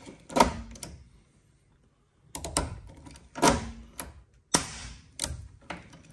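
Lazy-tongs pop rivet gun being pumped to set a blind rivet, its steel scissor linkage clacking with each stroke: a string of sharp metallic clacks, with a pause of about a second and a half starting about a second in.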